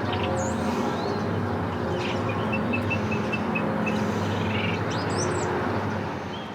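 Birds chirping and twittering over a steady rumble of traffic. The sound starts fading out near the end.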